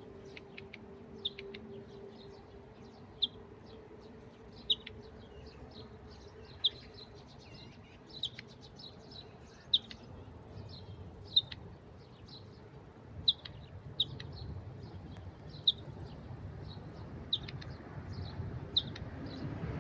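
A bird repeating a single short, sharp, high chirp about every one and a half to two seconds, with a faint low rumble building near the end.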